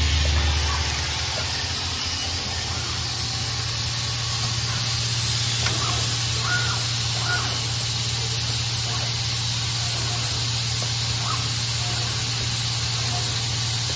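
Steady machine noise from a PCB odd-form component insertion machine at work: a constant low hum under an even hiss, with a few faint short high chirps now and then.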